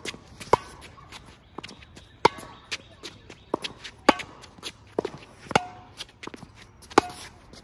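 Tennis balls struck with rackets in a fast volley exchange: sharp pops about every one and a half to two seconds, alternating loud near hits and quieter far ones. Between them come lighter footsteps and short squeaks of shoes on the hard court.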